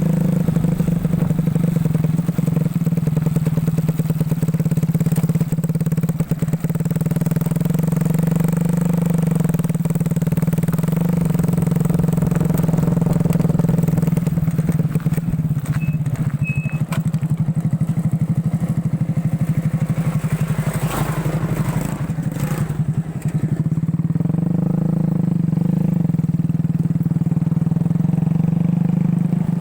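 Motorcycle engine of a home-built ATV running at a steady speed, with a couple of brief knocks about two-thirds of the way through.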